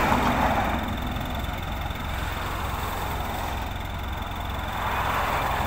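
Small dump truck's diesel engine running steadily under load while its hydraulic hoist raises the loaded bed to tip a load of fill dirt.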